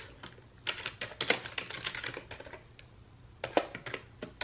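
Typing on a computer keyboard: an irregular run of key clicks, then a few separate taps near the end.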